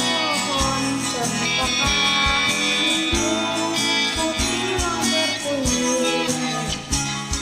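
Karaoke backing music playing an instrumental interlude with a steady beat.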